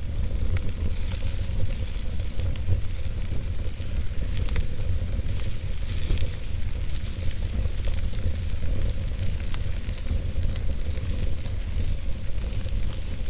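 Fireplace fire crackling and hissing over a steady low rumble, with scattered sharp pops.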